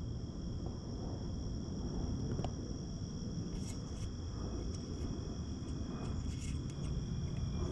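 Steady, unbroken trilling of insects, likely crickets, in two high tones, with a few faint light clicks about halfway through and again later.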